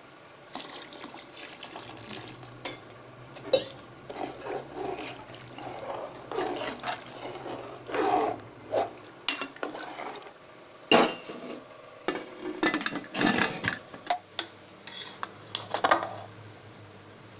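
Metal spoon stirring and scraping in a metal pressure-cooker pot, with irregular clinks and knocks against its sides.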